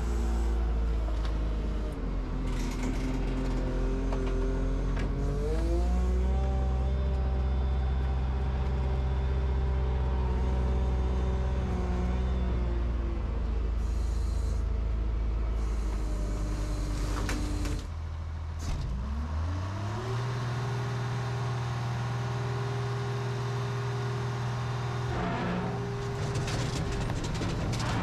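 A heavy-equipment engine running under varying load, slowing about a second in, speeding up around six seconds and holding, then dropping near eighteen seconds and climbing back up around twenty seconds. A few clanks come over it.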